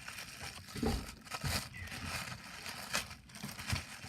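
Slime being handled, with irregular crinkling and crackling noises and a few sharper pops about a second in, at one and a half seconds and near three seconds.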